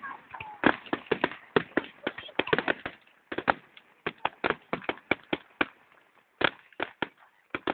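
Fireworks going off in an irregular series of sharp bangs and cracks, dense at first and thinning out after about three seconds.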